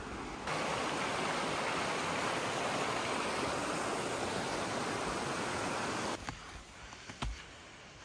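Steady rushing of water over rocks in a shallow mountain stream. It comes in about half a second in and cuts off abruptly about six seconds in, leaving a faint background with a couple of short knocks.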